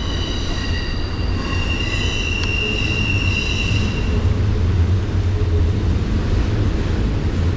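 Fly reel whining high and steady for about the first four seconds while a big brown trout is on the line, over the steady rush of the creek.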